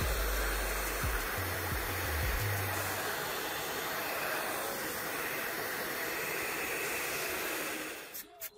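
Hair dryer blowing steadily onto a circuit board being cleaned, a constant rush of air with low buffeting of the air against the microphone in the first couple of seconds. It cuts off near the end, and music with a steady beat takes over.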